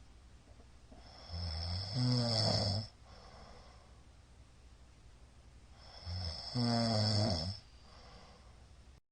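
A middle-aged man snoring loudly in his sleep: two long snores about four and a half seconds apart, each growing louder about halfway through, with quiet breathing hiss between them.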